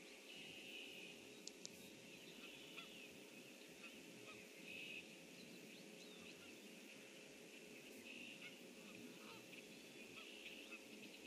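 Faint outdoor wetland ambience with distant bird calls swelling and fading several times, two small sharp clicks about a second and a half in, over a faint steady hum.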